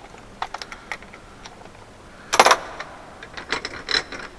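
Small metal clicks and clinks from handling a tool as a hot cutter clogged with aluminium is removed, with one louder clink about two and a half seconds in and a quick cluster of clicks near the end.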